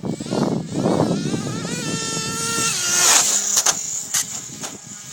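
Radio-controlled car's motor whining, its pitch rising and falling as the car speeds up and slows, with a rough rushing noise in the first second.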